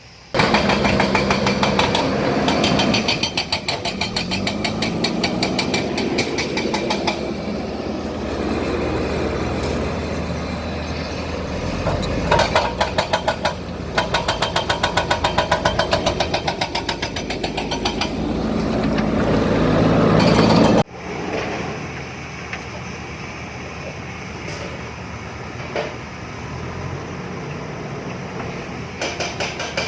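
JCB backhoe loader's diesel engine working under load, its pitch rising and falling, with a rapid, even clatter. About two-thirds of the way in the sound drops abruptly to a quieter steady engine running.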